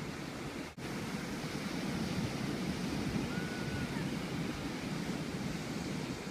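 Ocean surf breaking on a beach, a steady wash of noise, with wind buffeting the microphone. There is a very brief dropout in the sound just under a second in.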